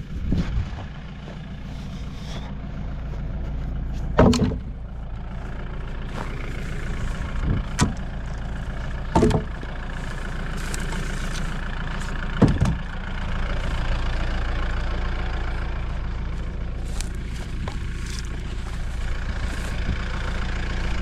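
Jeep engine idling steadily while old wooden fence posts are thrown into its back, landing with about five loud thumps spread across the first dozen seconds.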